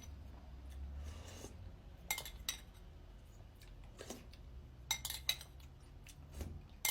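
A spoon clinking and scraping against an empty cereal bowl, a few short faint clinks spaced about a second apart.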